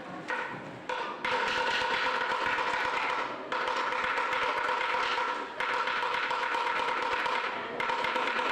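A steady held musical note with overtones, sounded in several long stretches that each start and stop abruptly.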